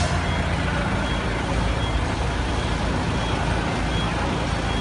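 Forklift engine running steadily at a low pitch while the wall panel is set in place, with a few faint short high beeps.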